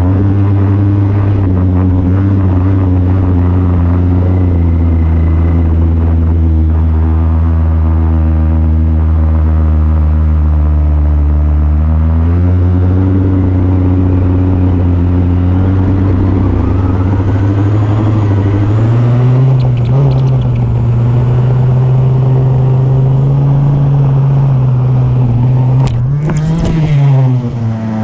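Weedeater (string-trimmer) engine on a 1999 T-Maxx RC truck, running loud at a fairly steady speed with small shifts in pitch. Near the end it revs up quickly and drops back down.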